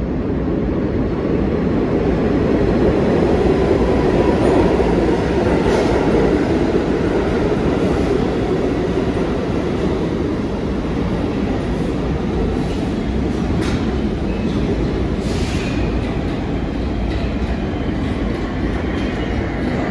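New York City subway train on the Lexington Avenue 4/5/6 line running past on the neighbouring tracks: a loud, steady rumble that builds over the first few seconds and then holds, with wheel clatter and a few brief metallic squeals.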